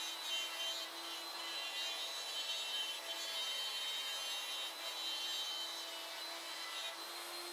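CNC router spindle running with a steady whine while its end mill cuts part outlines through a wood sheet.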